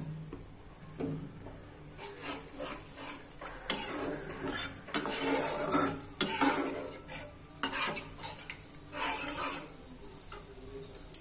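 Steel spatula stirring and scraping thin, watery curry gravy in a non-stick kadai, with irregular strokes and a few sharp clinks of metal on the pan. The water has just been stirred into the fried yogurt-and-spice masala.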